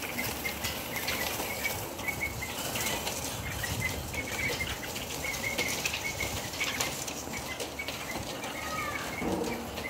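Caged birds fluttering and moving about in wire cages, with short high chirps repeated throughout and one brief sliding call near the end.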